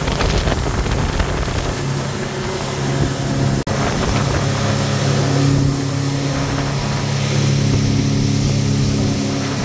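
Speedboat engine running steadily at speed over a rush of wind and water from the wake, with a brief break about a third of the way in.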